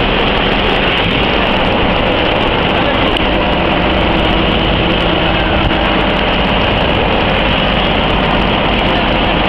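Fire engine running steadily, with a continuous hiss of water spraying from its hose.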